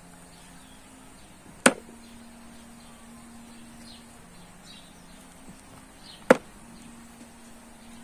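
Two sharp clicks, one under two seconds in and one about four and a half seconds later: apricot pits dropped into a plastic bowl as the fruit is split by hand.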